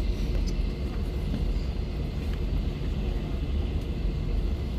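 Steady low rumble inside an airliner cabin as the jet taxis after landing: engine and rolling noise.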